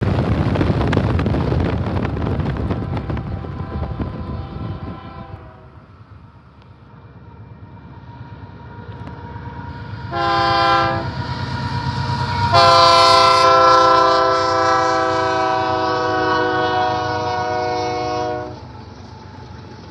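Freight locomotive air horn sounding for a grade crossing: a short blast about ten seconds in, then a long blast of about six seconds, each a chord of several notes. Before that, a loud rushing noise fades out over the first five seconds.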